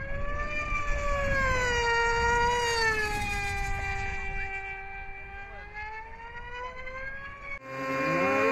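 High-pitched engine whine of a radio-controlled pylon-racing plane in flight, its pitch rising and then falling as the plane passes. Near the end it cuts abruptly to a different, steadier pitched sound.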